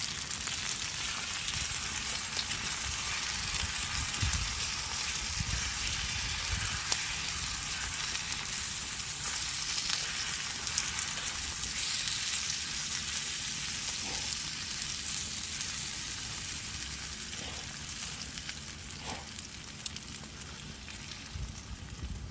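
Food sizzling in a hot pan: a steady, dense hiss with scattered pops, easing off a little near the end.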